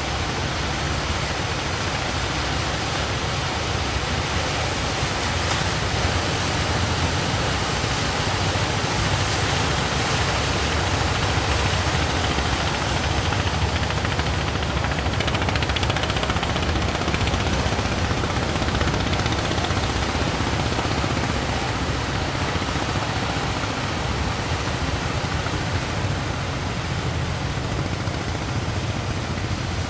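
Heavy surf producing a loud, steady rushing noise with a low rumble, swelling slightly in the middle.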